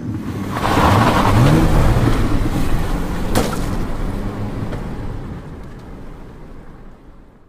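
Car engine revving and accelerating away, its pitch rising and falling over the first couple of seconds, with a sharp click about three and a half seconds in. The engine then fades steadily as the car pulls off into the distance.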